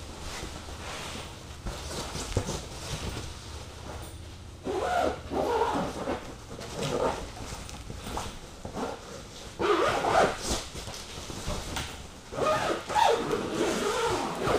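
Insulated bed cover being stretched and pulled into place, its material rubbing and creaking in several bursts of squeals, loudest about two thirds of the way through and near the end.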